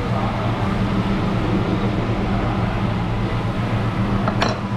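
Steady low machine hum with a hiss over it, and a single short click about four and a half seconds in.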